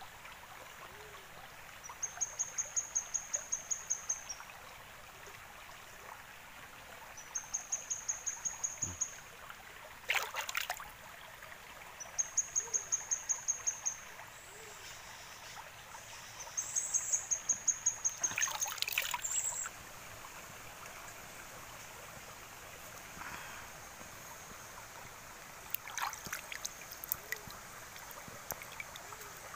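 Steady trickling of a stream, with a high-pitched, rapidly pulsing chirping trill from a small animal four times, about every five seconds, and a few sharp clicks.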